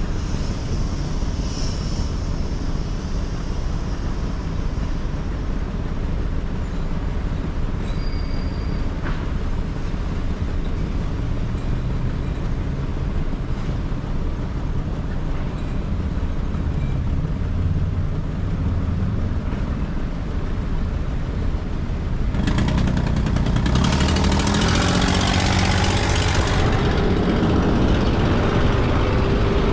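Steady low road rumble of driving through city traffic. About two-thirds of the way through, a louder rush of noise lasts about four seconds.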